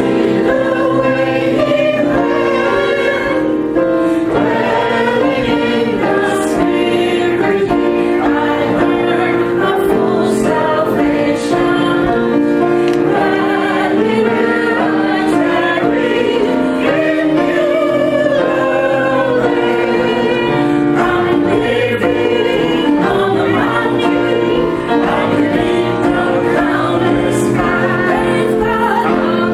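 Church choir singing a hymn, loud and continuous, over long held chords.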